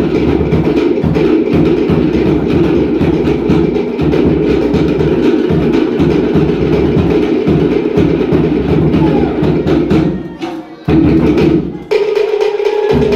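Cook Islands drum ensemble playing a fast, driving drum-dance rhythm on wooden slit log drums (pate) over a deep bass drum. The drumming briefly breaks off about ten seconds in, then starts again.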